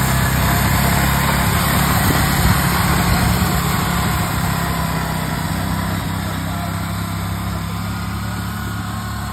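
Small Lister narrow-gauge locomotive's engine running steadily as it passes close by. It is loudest about two and a half seconds in, then slowly fades as the locomotive moves away.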